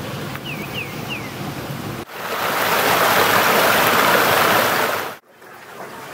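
Water pouring over rocks in a small waterfall: a loud, even splashing rush that cuts in about two seconds in and stops abruptly about three seconds later. Before it comes a softer outdoor background with three short bird chirps, and after it the quieter flow of a rocky stream.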